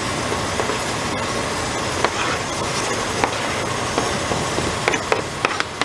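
Chef's knife scraping chopped onions and scallions off a cutting board into a pot, with a few sharp taps of the blade against the board, over a steady rushing noise.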